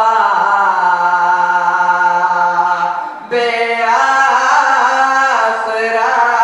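A young man reciting a noha, the Shia mourning lament, unaccompanied into a microphone: long held, wavering notes, with a short break for breath about three seconds in before the next line.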